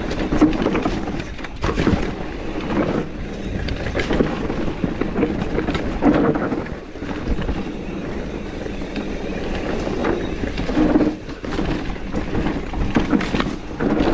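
Mountain bike riding down a dry, dusty dirt trail: steady tyre noise on loose ground with frequent knocks and rattles from the bike over bumps, and wind rushing on the camera microphone.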